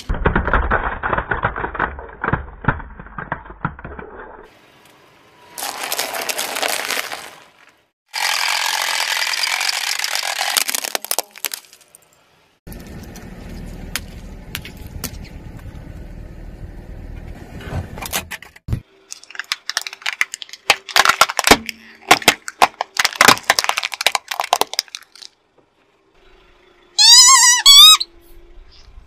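A car tyre rolling over toys one after another in separate clips, with hard plastic cracking and snapping as a toy car is crushed and a squishy orbeez-filled toy is squashed. Near the end a squeaky rubber toy squeals twice, wavering up and down, as the tyre presses on it.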